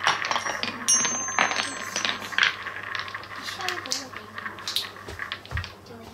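Painted wooden balls rolling around a wooden collecting bowl and clacking against each other and the wood. The clicks thin out and grow quieter as the balls settle, with only a few knocks near the end.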